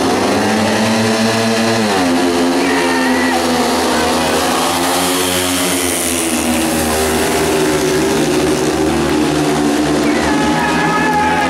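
Four speedway motorcycles, 500 cc single-cylinder methanol engines, accelerating hard away from the start together: their pitch climbs for about two seconds, drops suddenly, then the engines run on at high revs, rising and falling as the bikes race on.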